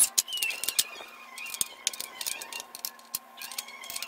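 Irregular clicks and taps of metal parts and hard plastic being handled as screws and a bracket are fitted to a plastic child bicycle seat's metal frame, the sharpest clicks at the very start.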